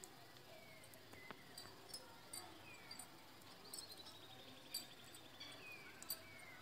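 Near silence: a few faint light clicks from a spoon against a steel bowl as masala stuffing is pressed into small brinjals. In the background there are faint bird chirps and a short falling trill about four seconds in.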